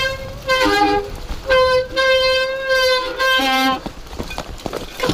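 Mountain bike disc brakes squealing in three pulls, the middle one held about a second and a half, a steady high whine typical of brakes that are wet. Underneath, tyres rattle over the rocky trail.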